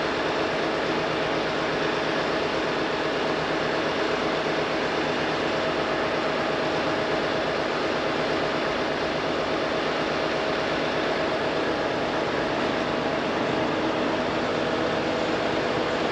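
A machine's engine running steadily at constant speed, with an even mechanical noise and a steady hum.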